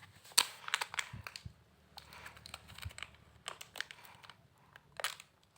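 Plastic wrapper of a pack of modelling clay crinkling and crackling in irregular sharp bursts as it is torn open and the clay is pulled out.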